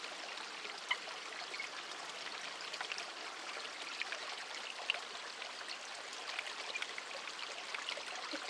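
Steady running-water noise, like a small stream, with a few faint clicks about a second in and near the middle.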